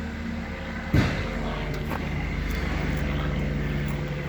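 A steady low drone runs throughout, with one sharp knock about a second in.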